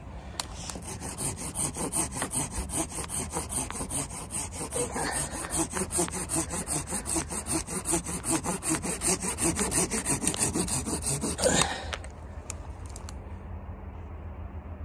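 Folding pruning saw cutting through a dead branch in rapid, even back-and-forth strokes. The sawing stops about three seconds before the end.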